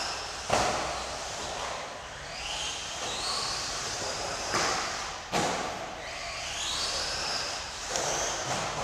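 Electric 1/10-scale two-wheel-drive mod RC buggy lapping a track: its brushless motor whines up in pitch again and again as it accelerates. Sharp thuds of the buggy hitting the track come about half a second in and twice around five seconds.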